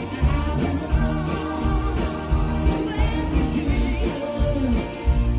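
Live country band playing on amplified stage speakers: drums, electric guitar, bass guitar, acoustic guitar, keyboard and fiddle, with a steady beat.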